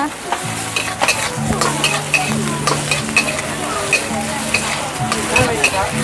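Squid, shrimp and egg sizzling in hot oil in a wok, with a metal spatula scraping and clicking against the wok's steel as the food is stir-fried.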